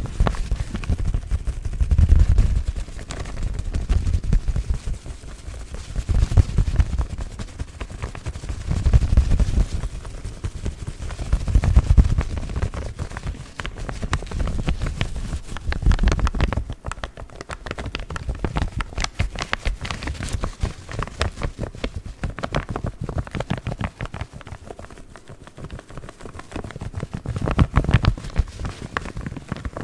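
Paper coffee filter bags crinkled and crumpled close to a microphone: dense crackling with soft low thuds that swell and fade every two to three seconds.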